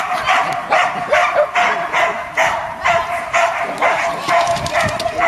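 Dog barking repeatedly in a steady string, about three barks a second.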